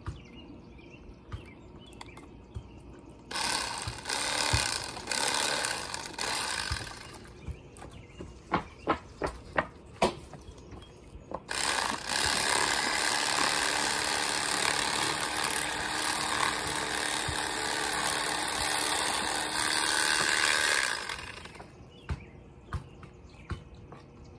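Electric fillet knife running as it cuts through a bluegill, in two stretches: one of about three and a half seconds and a longer one of about nine seconds. Between them there are a few sharp clicks.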